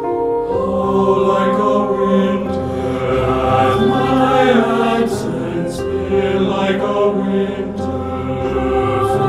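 Mixed SATB choir singing a slow choral setting with piano accompaniment; the voices come in about half a second in after a piano-only passage.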